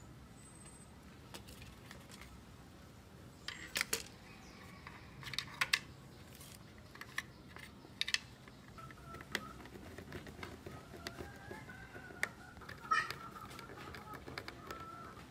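Sharp clicks and knocks of a circuit board and a plastic telephone case being handled and fitted together, the loudest a few seconds in. A screwdriver works a small screw into the board near the end. From about the middle on, a faint wavering call sounds in the background.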